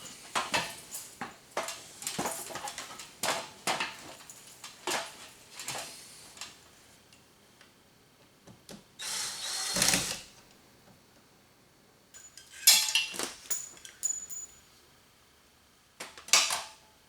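Hand tools and hardware being handled: a quick run of knocks and clicks, a dense noisy burst of about a second midway, and more clatter near the end.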